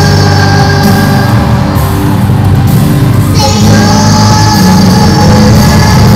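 Two young children singing a duet through stage microphones over a loud backing track. A new long held note comes in about three and a half seconds in.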